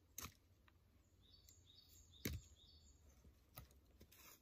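Near-quiet woodland with faint bird chirping, broken by a few sharp knocks of wood being handled; the loudest knock comes about two seconds in.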